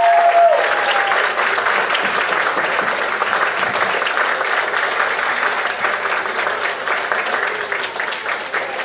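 Audience applauding, a dense steady patter of many hands clapping that slowly tapers off toward the end. A short held tone sounds right at the start.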